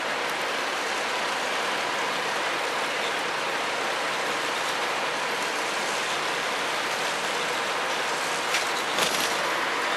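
Tri-axle double-decker bus idling, a steady engine hum under a broad hiss, with two short clicks near the end.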